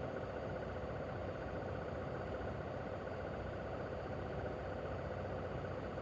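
Mitsubishi Heavy Industries SRC2221T inverter air-conditioner outdoor unit running steadily in cooling mode: an even hum of its single rotary compressor and fan, with a steady tone held throughout.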